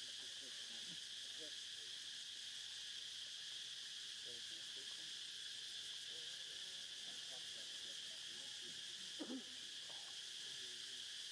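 Steady, high-pitched drone of an insect chorus, with faint scattered low sounds and one brief louder sound about nine seconds in.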